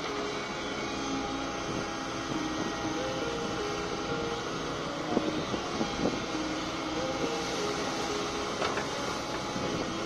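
Diesel engine of a JCB tracked excavator running steadily under load as it digs wet river sand. Its pitch steps up and down as the hydraulics work, and there are a few sharp knocks from the bucket about halfway through and again near the end.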